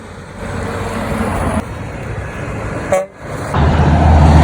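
A semi truck's air horn gives a honk that is pretty quiet, heard as a faint steady tone, before the truck's diesel engine drones loudly and close by from about three and a half seconds in as it passes.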